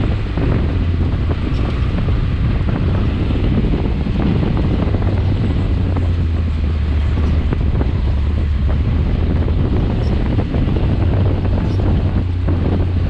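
Wind buffeting the microphone over the steady low drone of a Can-Am X3 XRC Turbo's three-cylinder turbocharged engine under way on sand.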